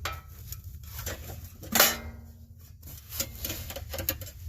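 Scattered handling clicks and one loud metallic clank about two seconds in that rings on briefly, over a steady low rumble.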